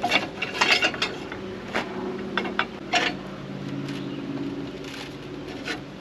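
A spool of fence wire being handled and set onto a metal spool holder: a string of irregular clicks and knocks, over a steady low hum.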